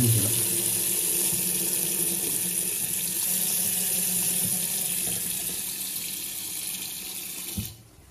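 Hot water running hard from a tap fed by a water heater, a strong steady gush, its flow restored after a blockage in the heater's pipework was cleared. It cuts off suddenly near the end as the tap is shut.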